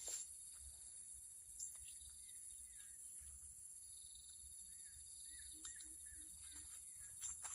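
Faint steady chorus of insects, with a few soft chirps and clicks.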